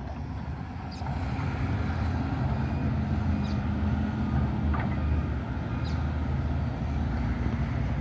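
Steady low engine rumble, a little louder from about a second in, with a faint steady hum over it in the middle.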